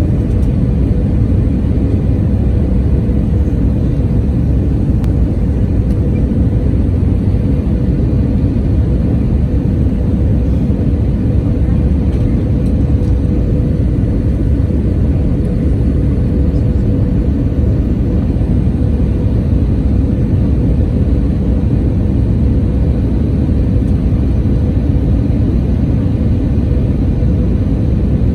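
Airbus A320 airliner cabin noise heard from a window seat over the wing: a steady, even jet and airflow rumble with a faint steady hum running through it.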